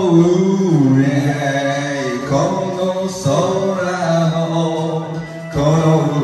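A man singing through a karaoke microphone over a karaoke backing track, holding long notes that bend in pitch, with a short break about five and a half seconds in.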